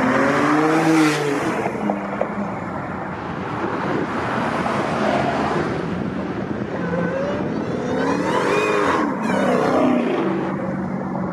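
Performance car engines revving as cars pull away: a rising rev at the start, then a few revs that climb and drop in pitch from about seven seconds in, over another engine idling steadily.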